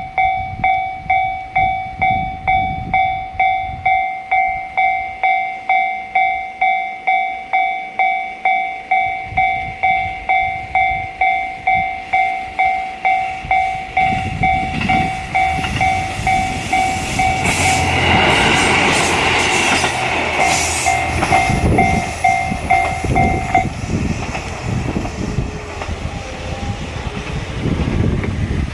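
A Japanese level-crossing alarm rings its electronic bell tone about one and a half times a second while a KiHa 54 diesel railcar approaches and passes. The railcar's engine and wheels are loudest a little past the middle, and the bell stops a few seconds before the end as the railcar moves away.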